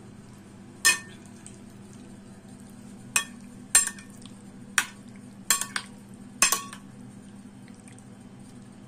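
Metal cutlery stirring sauced bulgur dumplings in a glass bowl, clinking sharply against the glass about seven times at uneven intervals, over a steady low hum.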